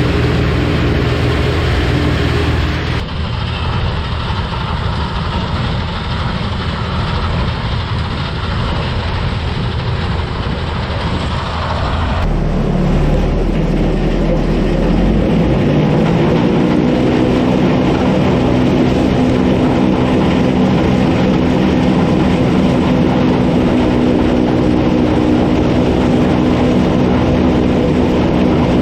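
Sampo 680 combine harvester running, its engine and threshing machinery making a steady mechanical drone. The sound changes abruptly twice, a few seconds in and again near the middle. After that its pitch rises slightly and then holds steady.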